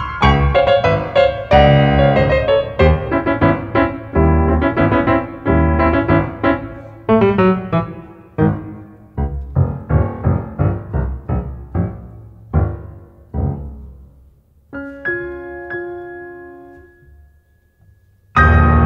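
Steinway concert grand piano played solo. Fast, dense passages give way to sparser, softer notes, and the piece closes on a held chord that is left to die away. A sudden loud sound cuts in just before the end.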